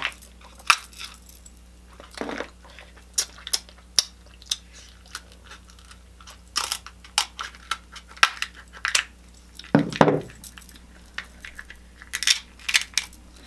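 Close-up eating of seafood-boil shellfish: shells cracked and snapped apart, with crunching and chewing, heard as a string of sharp irregular clicks and cracks.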